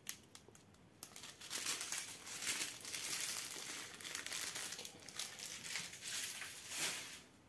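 Thin plastic sachets of diamond-painting drills crinkling as they are handled and laid down, starting about a second in and stopping shortly before the end.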